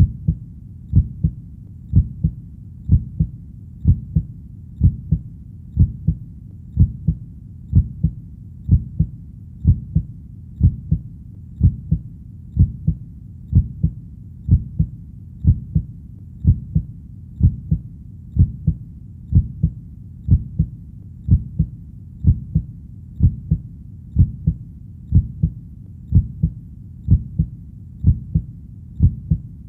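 Heartbeat: a steady, low double thump (lub-dub) repeating evenly at about one beat a second.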